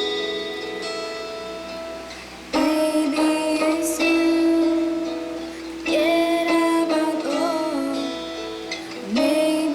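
Female voice singing a slow pop ballad over guitar accompaniment, in sung phrases with held notes that come in about two and a half seconds in, again around six seconds, and near the end.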